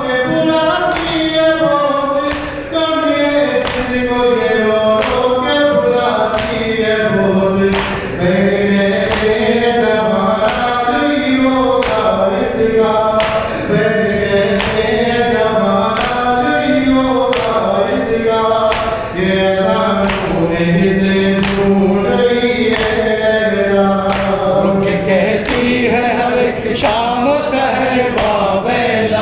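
Men's voices chanting an Urdu noha together without instruments, kept to a steady beat of sharp strikes about one and a half times a second, the hand-on-chest beating (matam) that goes with a noha.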